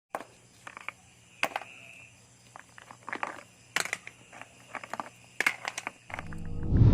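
Scattered irregular clicks and crackles, like handling or rustling, then a low rising sound in the last second that leads into electronic music.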